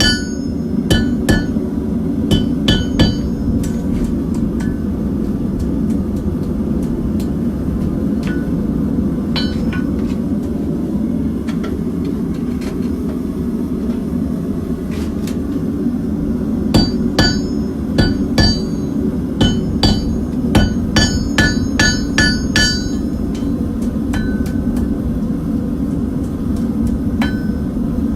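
Blacksmith's hammer striking steel on an anvil, each blow ringing. The blows are scattered at first, then come in quick runs of about two a second in the second half, over a steady low roar.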